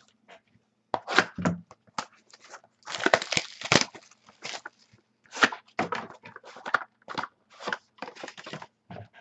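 Handling of a trading-card box and its packaging: irregular rustling, crinkling and tearing bursts, loudest about a second in, again from about three to four seconds in, and once more about halfway through.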